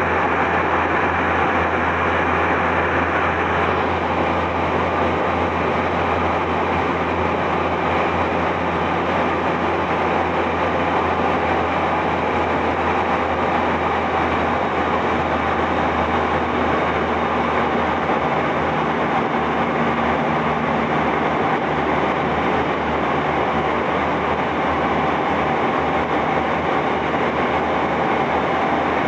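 Korail Gyeongchun Line electric train running, heard from inside the carriage: a steady rumble of wheels on rail with a low hum underneath.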